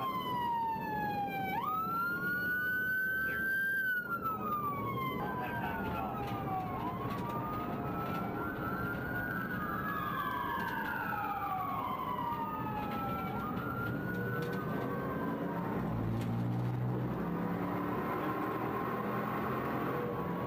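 Police car sirens wailing in slow rises and falls, with several sirens overlapping through the middle and fading away after about fifteen seconds. Steady road and engine noise from a car at high speed runs underneath.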